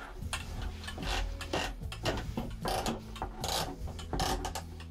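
Metal table pole scraping and rubbing in its floor-mounted socket as it is worked down and twisted to lock, in a series of short irregular strokes.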